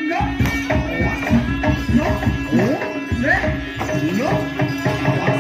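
Jaranan accompaniment music: fast, dense hand-drum (kendang) strokes with short rising pitch bends, over a steady held tone.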